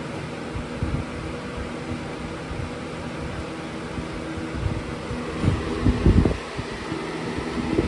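Lasko Cool Colors box fan (model B20310) running on high: a steady rush of air with a motor hum. A few low thumps come about two thirds of the way in.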